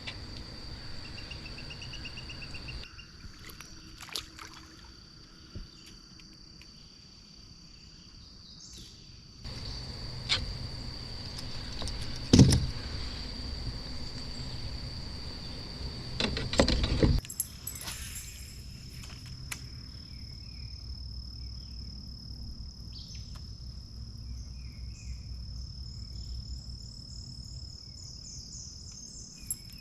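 Crickets chirring in a steady, high-pitched chorus, with scattered knocks and handling noises against the kayak; the loudest knocks come about twelve seconds in and again around sixteen to seventeen seconds.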